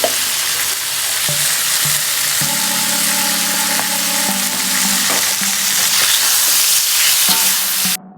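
Food sizzling in hot oil in a pan or wok while being stirred, a steady dense hiss. It cuts off suddenly just before the end.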